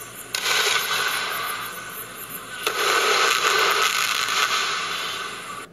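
Firework shells bursting into a red and green coconut to crackling effect, heard through a computer's speakers: a sudden burst about a third of a second in and another about two and a half seconds in, each trailing into a dense crackling hiss that slowly fades.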